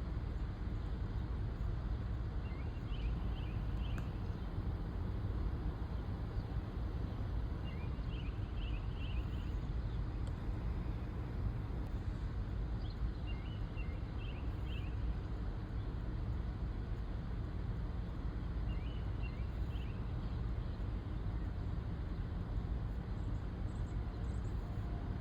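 Steady low outdoor rumble, with a small bird chirping in short groups of three or four quick notes every few seconds.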